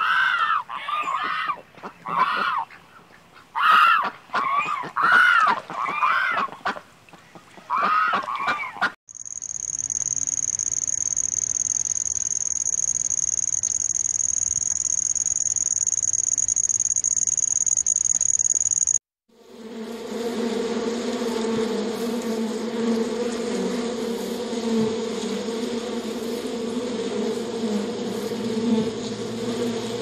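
Waterfowl calling, repeated short honking calls for the first several seconds. Then a steady high-pitched tone holds for about ten seconds and cuts off. After a brief gap, a honeybee colony on the comb gives a dense, steady hum.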